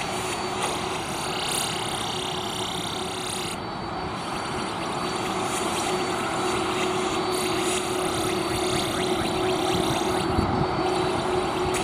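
Boeing 747-400 freighter's four jet engines running at taxi power as it taxies: a steady jet whine over a constant low hum, growing slightly louder toward the end.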